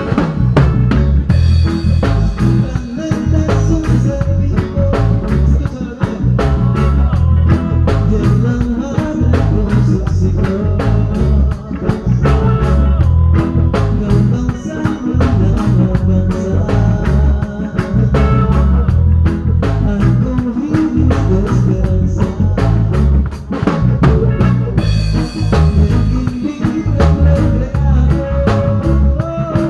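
Band music with a drum kit keeping a steady beat and singing.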